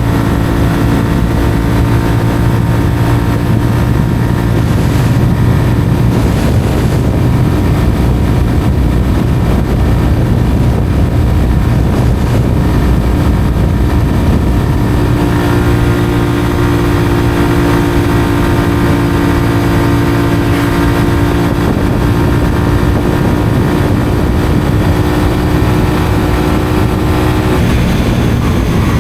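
Honda CBR125R's single-cylinder 125 cc four-stroke engine through a Mivv aftermarket exhaust, running under way at fairly steady revs with wind rush. Its note grows stronger about halfway through, then drops in pitch shortly before the end as the revs fall.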